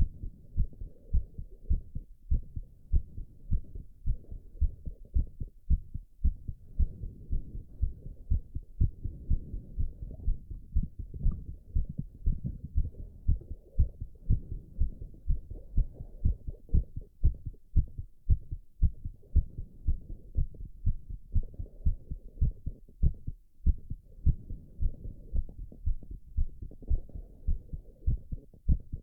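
A man's heart beating, heard through the chest as muffled low thumps in a fast, steady rhythm. It is still racing from the exertion of doing squats, in the recovery phase.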